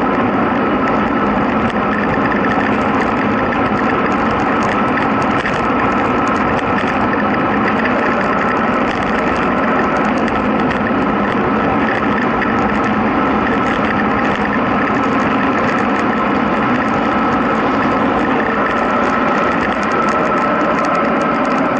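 Wind rushing over the microphone with steady road rumble and a fine, constant crackling rattle, from a camera moving fast down a paved mountain road.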